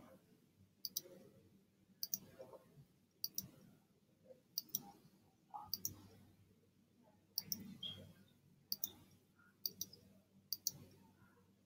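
Computer mouse button clicking, about ten faint, sharp press-and-release clicks spaced roughly a second apart, as line points are placed in a drawing program.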